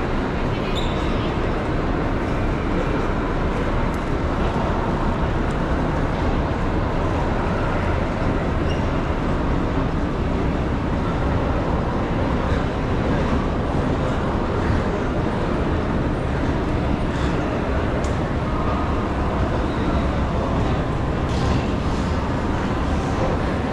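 Steady ambient rumble of a busy railway station, with faint scattered clicks and taps over it.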